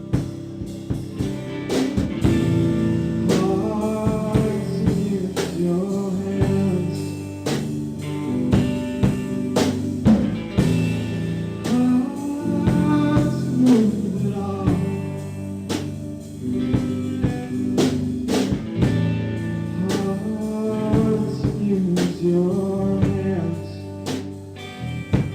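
A band song with drums and guitar, and a voice singing over it from about two seconds in.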